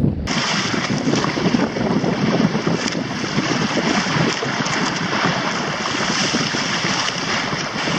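Strong wind buffeting the microphone and choppy water rushing and splashing along the hull of a Hobie sailing trimaran, a steady rush of noise. About a third of a second in, it changes abruptly from a low rumble to a brighter hiss.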